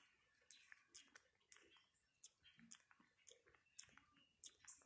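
A Java macaque grooming a person's hair at close range: faint, irregular soft clicks as it picks through the hair.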